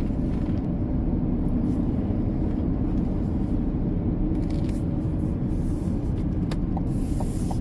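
Steady low rumble of engine and tyre noise inside a car's cabin while driving.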